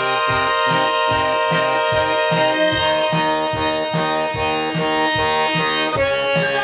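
Bandoneón playing: short bass-and-chord notes pulsing a few times a second under a held high note, with a change of chord about six seconds in.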